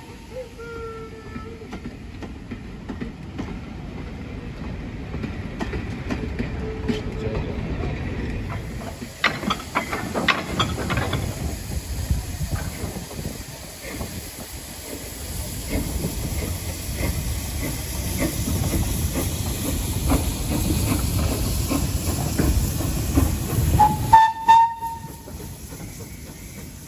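Steam train of goods wagons rolling slowly past, wheels and buffers clanking over the rail joints and pointwork with a steady rumble. There are brief whistle toots at the start and a loud steam whistle blast near the end.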